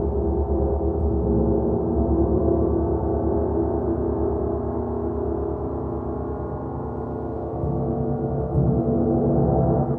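Paiste gongs ringing in a sustained wash of many overlapping tones with a rapid low pulsing beat underneath. The sound lifts slightly with fresh soft strokes near the end.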